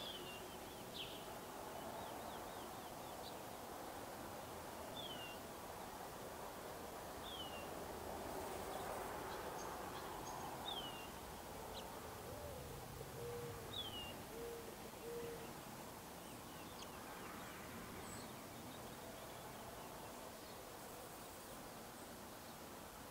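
Gambel's quail chicks brooded under the hen giving thin, high peeps that slide downward, one every couple of seconds through the first half. About halfway through, a low cooing call of four or five notes sounds over faint outdoor hiss.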